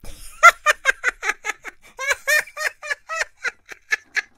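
A high, childlike voice laughing in a fast 'ha ha ha' run, about six laughs a second.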